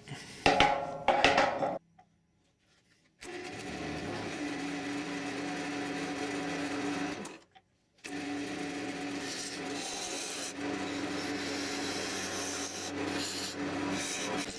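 Wood lathe running, with a tool working against the spinning stabilized wood blank: a steady hum under a rough cutting hiss. It opens with a few loud uneven knocks, and the sound drops out to silence twice, for about a second near the start and briefly past halfway.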